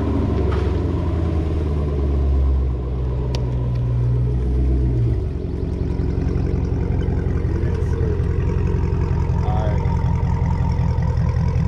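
Dodge Scat Pack's 392 (6.4-litre) HEMI V8 running through a catless full-catback exhaust, a steady deep exhaust note that steps down in pitch about five seconds in.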